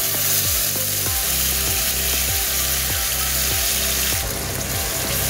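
Wet ground cashew, onion and spice masala paste sizzling loudly and steadily as it is poured into hot oil in a pan with curry leaves and cinnamon. The sizzle starts the instant the paste lands.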